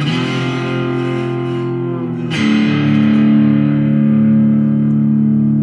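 Outro music: guitar chords held and ringing, with a new chord struck about two seconds in.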